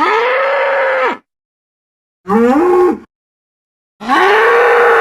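Bull bellows used as a creature sound effect: a long call ending about a second in, a shorter call rising in pitch just past two seconds, and another long, steady call starting about four seconds in.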